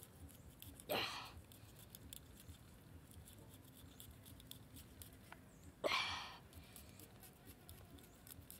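Small knife cutting and scraping along a raw eel as its skin is sliced and peeled, with faint small clicks and two short rasping strokes, about a second in and again near six seconds.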